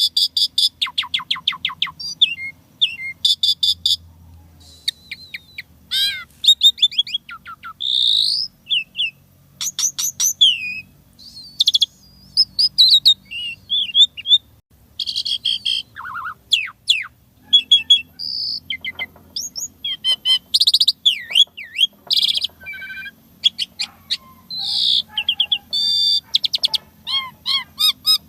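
Asian pied starling (jalak suren) singing a long, varied song: rapid chattering trills and clicks mixed with short whistles and sweeping notes, with no real pauses. The song is full of mimicked phrases (isian).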